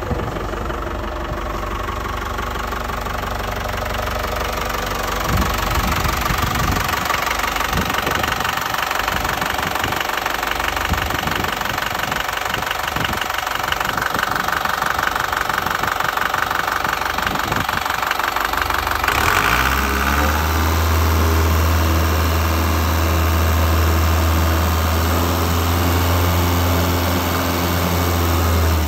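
Komatsu FD20-11 forklift's diesel engine idling with a steady clatter. About two-thirds of the way through, a strong, steady, deep drone comes in and holds to the end.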